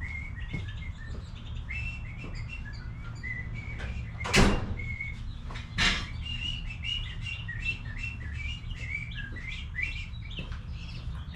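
Small birds chirping over and over in quick short notes, with two sharp knocks about four and six seconds in, over a steady low hum.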